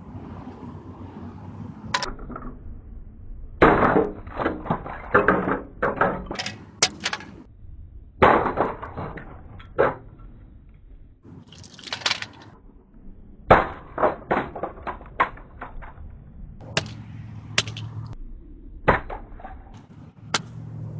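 An alarm clock being smashed apart: repeated sharp blows in several clusters, with crunching and clinking of breaking pieces.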